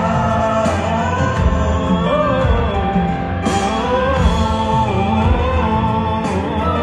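A male voice singing a slow Hindi film song over instrumental backing, with long held notes that bend and waver in pitch.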